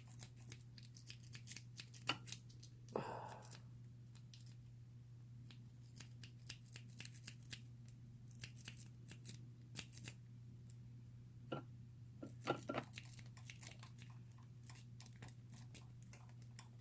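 Snake rake scraping and clicking inside a Brinks padlock's keyway as it is raked, a fast irregular run of faint metallic clicks, over a steady low hum.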